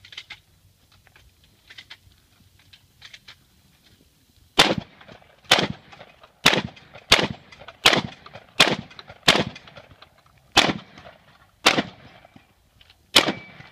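Pistol fired ten times in a steady string, starting about four and a half seconds in, at roughly one shot a second, with a slightly longer gap before the last shots.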